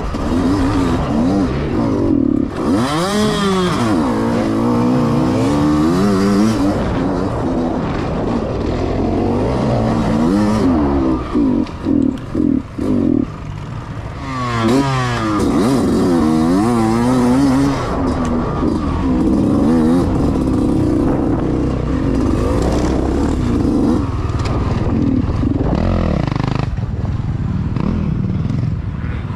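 Yamaha YZ125X two-stroke dirt bike engine revving up and easing off again and again as it is raced over rough ground, with clattering and scraping from the bike. Around the middle the throttle is chopped on and off several times in quick succession.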